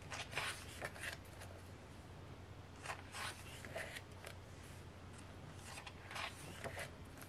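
Pages of a thick photo book being turned by hand, the paper swishing and rustling in several short bursts as the leaves are lifted and flipped over.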